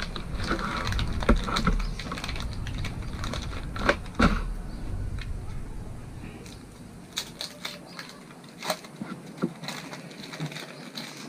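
Paper wrapping of a cheese slice being handled and unfolded: scattered light crinkles and sharp clicks. A low background rumble cuts out about seven seconds in.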